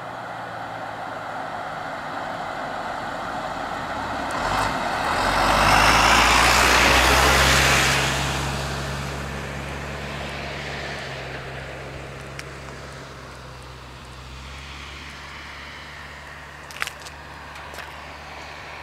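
A road vehicle passing by the microphone: its noise swells, peaks with a low engine hum about six to eight seconds in, then fades away. A few sharp clicks come near the end.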